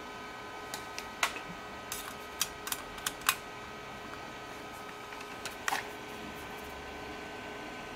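Scattered sharp small clicks and taps, about eight of them, most in the first three and a half seconds and one more near six seconds in, over a faint steady high whine.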